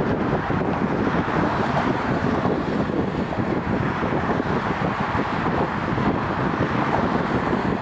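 Road traffic: cars driving past steadily on a multi-lane road, with wind rumbling on the microphone.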